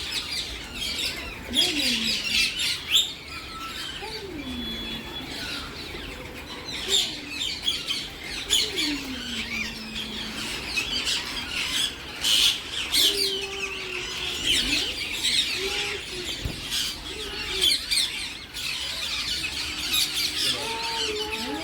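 A large flock of parrots screeching and chattering, many calls overlapping in a dense, continuous din, with a few lower sliding calls beneath.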